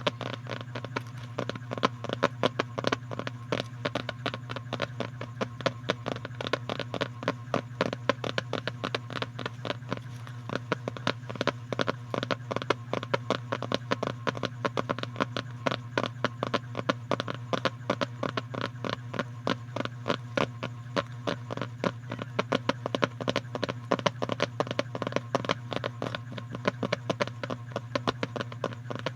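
Quick, irregular clicking and tapping close to the microphone, several clicks a second, over a steady low hum.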